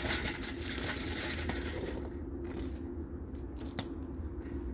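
Loose metal jangling and rattling for about two seconds, then a few scattered sharp clicks, over a steady low hum.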